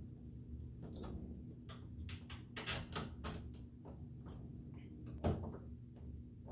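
A new door hinge being handled and fitted against the door: a run of sharp metal clicks and taps about two to three seconds in, then one louder knock about five seconds in.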